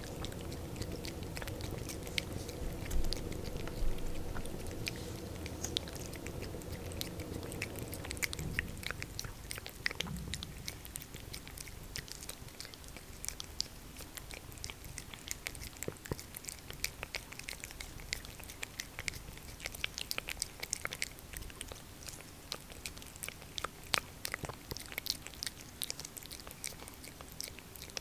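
A tabby cat licking and smacking at a lickable treat squeezed from a tube, a quick, uneven run of small clicks throughout. A low steady purr runs under the first eight seconds or so, then fades.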